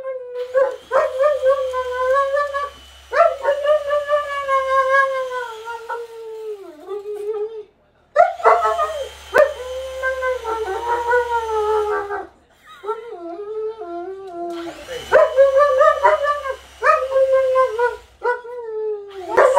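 German Shepherd howling and whining in long, drawn-out, wavering calls that bend up and down in pitch, in three long runs with short breaks about eight and twelve seconds in.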